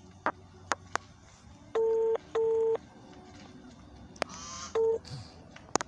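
Phone ringback tone on a mobile's loudspeaker: the called phone is ringing and not yet answered. It goes as double rings ('ring-ring') about every three seconds, with faint clicks in between, and the last ring is cut short near the end.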